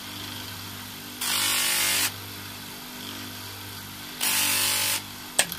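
Electric bench motor spinning a fine 600-grit sanding disc with a steady hum. A brass door handle is pressed against the disc twice, about a second each time, giving a loud hissing grind as the oxidised surface is sanded off. A sharp click comes near the end.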